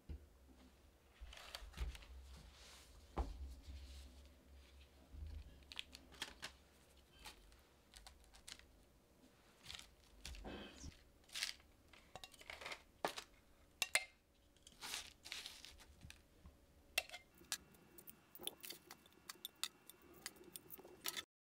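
Baking paper and a plastic food glove crinkling and rustling as baked potato wedges are picked up off the tray, with irregular light clicks and scrapes.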